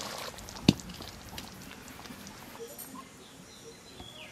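A single sharp clank about a second in as an iron kadai of fish curry is lifted off a wood-fired clay stove, after a brief fading sizzle at the start; then only faint scattered ticks.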